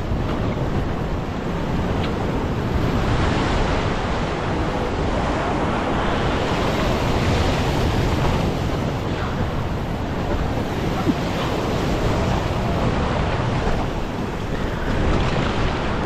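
Ocean swell surging and washing over a rock ledge, a steady churning rush of surf, with wind buffeting the microphone.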